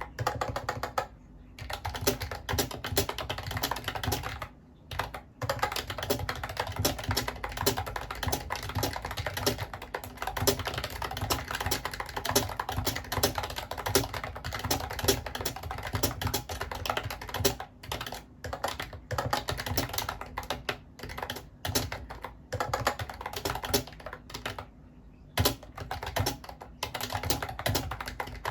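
Steady, fast typing on a Mofii Candy wireless keyboard: a dense run of key clicks, broken by a few short pauses.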